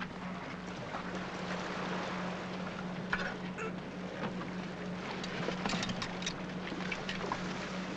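Scuba tank and diving gear handled and lifted out of a car's boot: scattered knocks, clicks and rustling, busiest in the second half, over a steady low hum and hiss.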